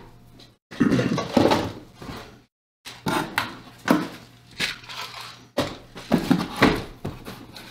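Irregular crinkling and crunching handling noises, a dozen or so short bursts of varying strength with brief gaps between them.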